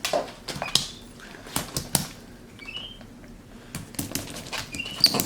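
Capuchin monkey slapping and patting a large ball of slime with her hands: irregular sharp slaps, several close together. Three short, high rising squeaks from the monkey.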